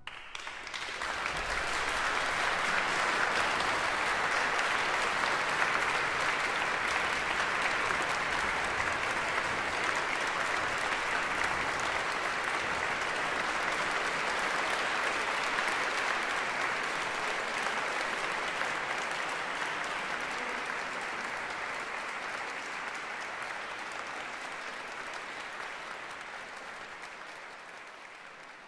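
Audience applauding: the clapping swells within the first two seconds, holds steady, then slowly fades near the end.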